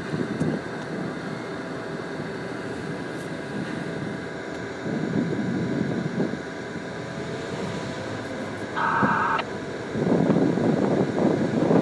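Diesel-electric locomotive running as it rolls along the track, with wind on the microphone and rumbling wheel-and-rail noise that swells twice, loudest near the end. A short tone of several pitches sounds briefly about nine seconds in.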